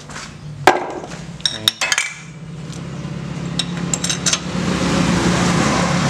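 Metal hand tools and steel bolts clinking and knocking against the aluminium cylinder head of a Honda GX160 engine as the head bolts are fitted: one sharp knock, then two short clusters of clinks. Under them a steady low hum and a noise that grows steadily louder toward the end.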